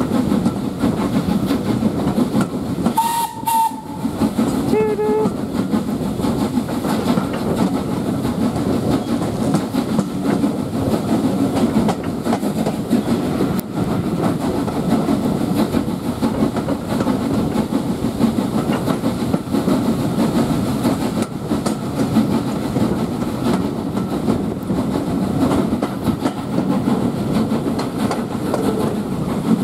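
LSWR S15 class 4-6-0 steam locomotive No 506 sounding its whistle briefly about three seconds in and again shortly after, over the steady running noise of the train heard through an open carriage window.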